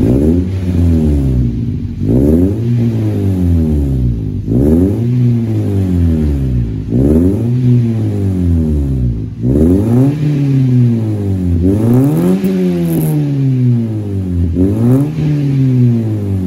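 Toyota Vios Gen 3's four-cylinder engine revved in repeated short blips, about one every two seconds, its pitch rising and falling each time. It blows through a drag-type resonator and a Pro Max muffler held to the tailpipe, a deep bass exhaust note.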